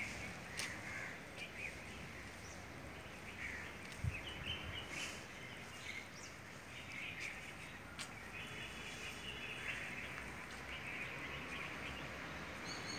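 Outdoor ambience with small birds chirping on and off over a low steady background noise, with a few light clicks and one soft thump about four seconds in.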